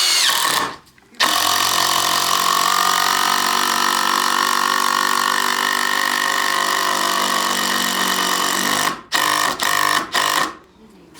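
DeWalt DCF787 20 V cordless impact driver driving a 4-inch screw into hard ash: a short run, a brief pause, then a long steady run of about seven seconds. It ends in a few quick spurts as the screw is seated and countersunk.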